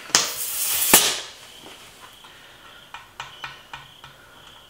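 A short burst of air hissing at a bicycle tire's valve for about a second, cut off with a click, then a few light clicks and taps around the valve and wheel.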